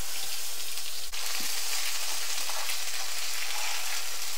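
Curry leaves sizzling in a hot pan, a steady frying hiss with one brief drop-out about a second in.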